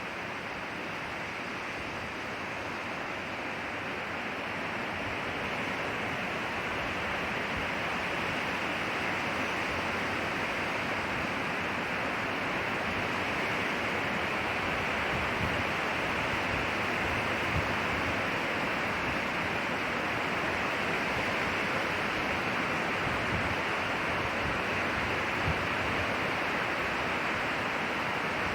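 Wind blowing steadily through pine trees, a dense hiss of needles and branches that swells gradually over the first several seconds.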